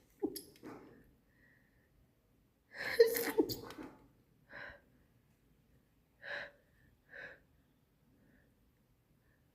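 A woman sneezing in an allergy sneezing fit: a short sneeze at the start, then a loud double sneeze about three seconds in, followed by three short, quieter breaths.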